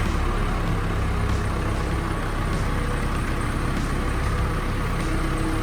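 Heavy vehicle engine running steadily.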